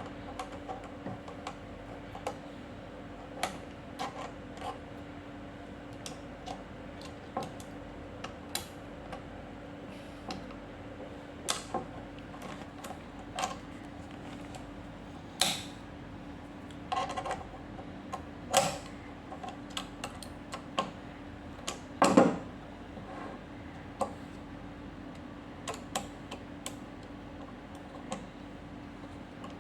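Small metal clicks and taps of a door lock's internal parts being handled and fitted, coming irregularly, the loudest about 15, 18 and 22 seconds in, over a steady low hum.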